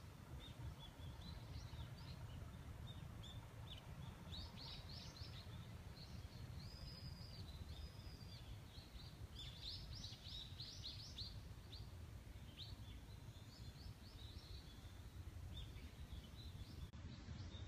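Small birds chirping and twittering, many short high calls coming in clusters, most busily about halfway through. Underneath is a faint, steady low rumble.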